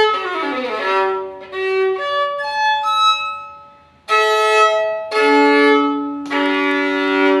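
Antique French violin of the Derazey School (about 1860) played solo: a quick descending run and a few single bowed notes, a brief pause about four seconds in, then three loud bowed chords.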